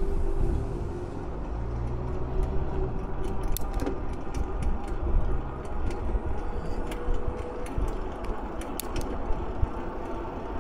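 An e-bike being ridden under pedal assist: steady tyre and wind noise with a low rumble and a faint steady whine from the electric motor, which steps up a little in pitch partway through. Scattered light clicks and rattles from the bike come through the middle stretch.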